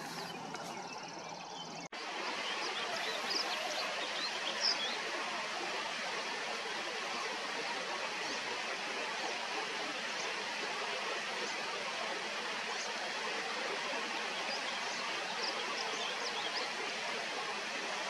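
A steady rush of flowing stream water, starting abruptly about two seconds in, with a few short, faint high bird chirps over it.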